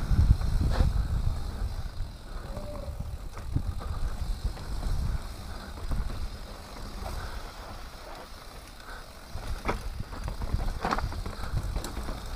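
Mountain bike rolling down a dirt forest trail: low wind rumble on the microphone, heavier in the first two seconds, under tyre noise, with a few sharp clicks and rattles from the bike over the bumps.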